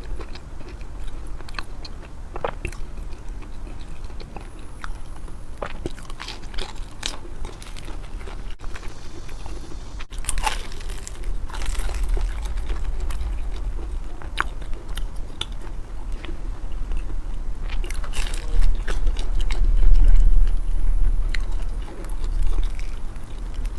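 Close-miked eating: biting and chewing crunchy food, with many sharp crisp crunches in an uneven rhythm. A louder low rumble comes about twenty seconds in.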